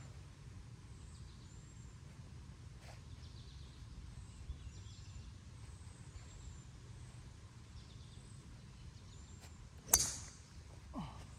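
A golf club strikes a ball once near the end, a sharp crack that is the loudest sound. Before it there is a steady low outdoor rumble with faint high bird chirps.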